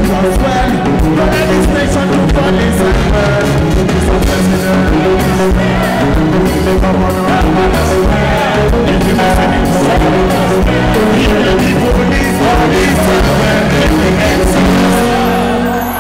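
Live music: a man singing into a microphone over a band or backing track with a steady beat.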